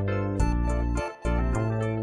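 Background music with a steady beat: sustained bass notes under regular high ticks, the bass dropping out briefly about a second in.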